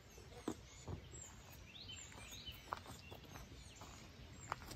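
Outdoor ambience with birds chirping, their short calls sounding on and off, over a steady low background hiss. A few soft knocks sound now and then.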